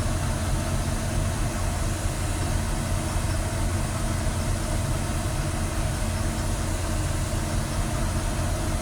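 GMC Savana van's V8 engine idling steadily at about 500–600 rpm, a low even rumble. The scan tool's live data shows this engine misfiring on cylinders 4 and 6.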